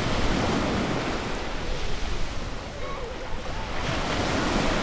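Ocean surf washing onto a beach, a steady rush that eases in the middle and swells again near the end, with faint children's voices.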